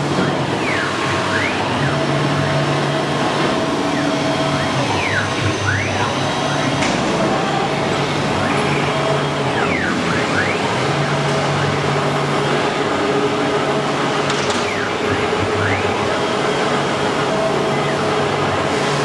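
CNC wood router at work: the spindle runs steadily, routing a pattern into a fibreboard sheet. Short falling-then-rising whines recur every second or two as the head moves and changes direction, over a low hum that comes and goes.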